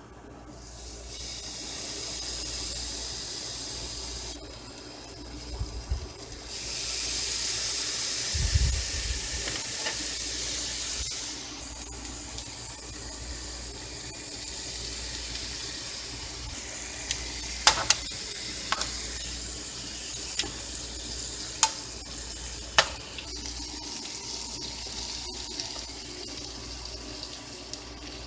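Water running steadily, like a tap, louder for the first several seconds, with a few sharp clicks or knocks in the second half.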